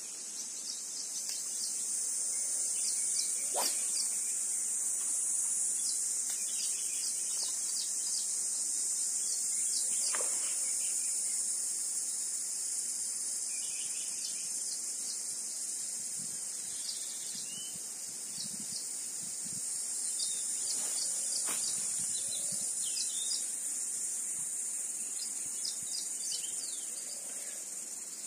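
Insect chorus: a steady, high-pitched buzzing that swells and eases, with short bird chirps over it. Three faint clicks come through, one early, one about a third of the way in and one past the middle.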